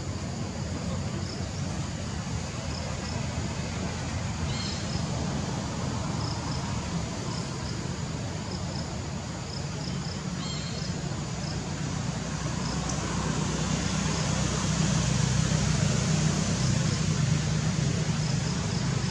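Outdoor background noise: a steady low motor rumble that grows louder over the last few seconds, with faint high insect chirps repeating throughout.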